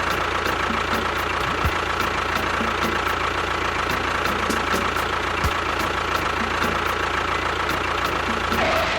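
Small motor of a DIY mini construction machine running steadily, with a faint, even ticking over a constant hum.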